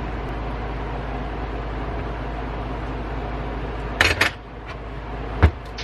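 Metal clicks and taps from handling a cast-iron hand-crank grain grinder, two or three about four seconds in, then a single sharper knock near the end, over a steady low hum.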